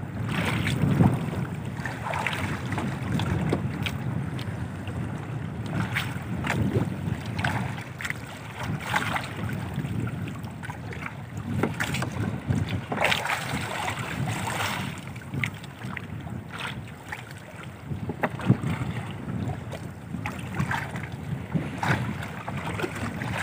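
Sea water slapping and splashing irregularly against the hull of an outrigger fishing boat, with wind buffeting the microphone.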